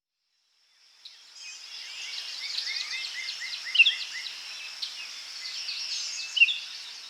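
Forest birds calling, including a run of short repeated chirps and a few sharper whistles, over a steady high-pitched insect drone. It fades in after about a second of silence.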